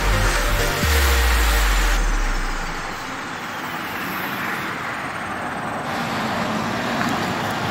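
Road race cyclists and the following team cars passing by make a steady rushing whir of tyres and traffic noise. A deep bass throb fades out in the first two and a half seconds.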